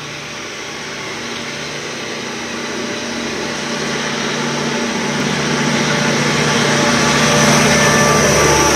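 KiwiRail DL-class diesel-electric locomotive hauling a container freight train, its diesel engine running with a steady low drone that grows louder as the train approaches and draws alongside.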